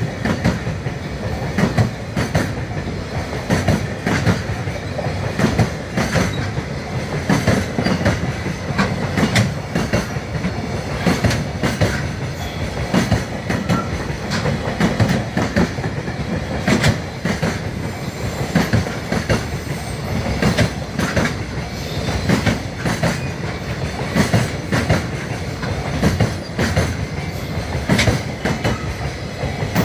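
Freight train rolling past, its wagon wheels clacking over the rail joints in a long, steady run.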